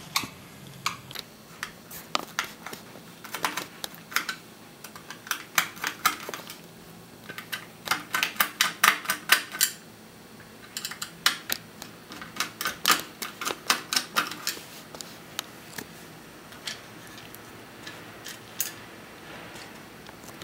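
Quick runs of sharp clicks and ticks from a screwdriver turning out the small screws that hold an electric iron's plastic body to its centre plate, with short pauses between runs. The clicks thin out over the last few seconds.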